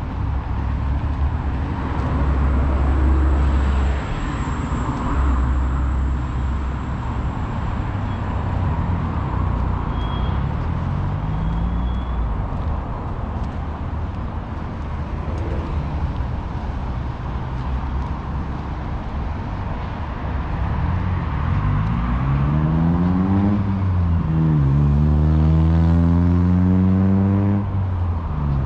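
City street traffic, with motor vehicles running steadily. Near the end, one vehicle accelerates, its engine pitch rising, dropping at a gear change and rising again.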